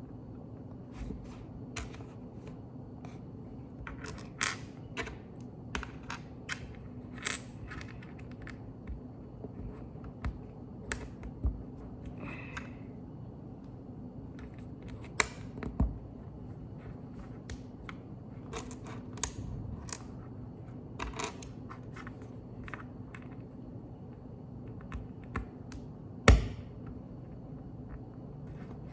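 Plastic Lego bricks being handled and pressed together: irregular small clicks and snaps, with one louder snap near the end.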